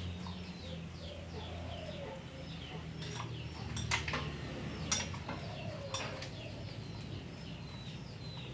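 A few sharp clicks and taps from hands fitting parts back onto a motorcycle's cylinder head after a spark plug change. Chickens cluck in the background over a low steady hum.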